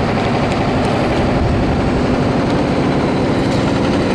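Steady city street traffic noise: a continuous low rumble of buses and other heavy vehicles running.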